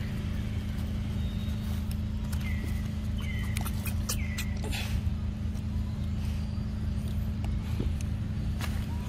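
A steady low engine hum, with three short high chirps about three seconds in and scattered clicks and rustles.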